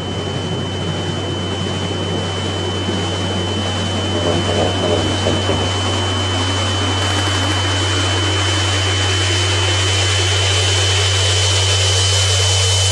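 Sound-design drone from a film trailer: a steady low hum and a thin, steady high whine under a hiss that swells and grows brighter throughout.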